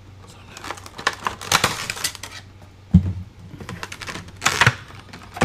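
Funko Pop vinyl figure being unpacked by hand: its packaging rustles and clicks in short irregular bursts, with a single knock about three seconds in.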